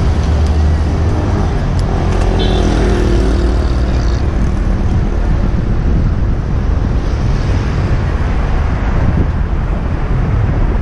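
Road traffic noise, with low wind rumble on the microphone of a camera riding along a bicycle lane. A motor vehicle's engine is heard passing in the first few seconds.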